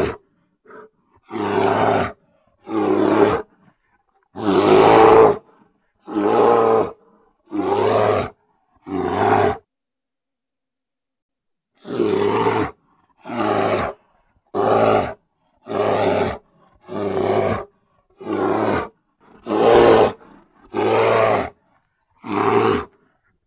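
Grizzly bear growling in a run of short, loud growls, each under a second long and coming about one a second. There is a pause of a couple of seconds partway through.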